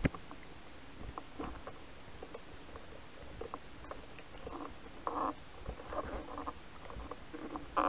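Underwater sound through a gun-mounted camera housing: scattered faint clicks and short bubbly gurgles, with a few louder bursts near the middle and end.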